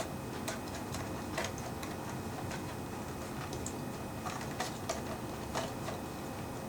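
Light, irregularly spaced clicks and taps of small plastic parts in a quartz clock movement being handled and worked loose.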